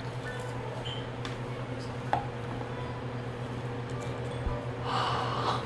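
Quiet tabletop sounds of a fried-chicken meal being started: scattered light clicks and clinks, with a short louder crackle near the end, over a steady low hum.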